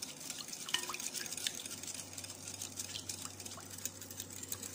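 Egg-and-condensed-milk custard mixture being poured and dripping, with scattered light ticks and clicks over a faint steady hum.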